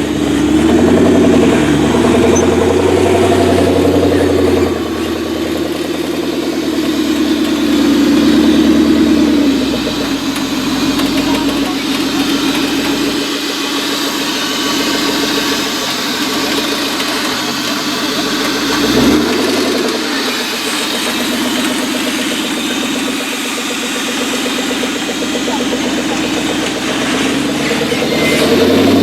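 Off-road 4x4 competition truck's engine running under load, its revs rising and falling repeatedly as it works, with louder pulls near the start and again a few seconds later.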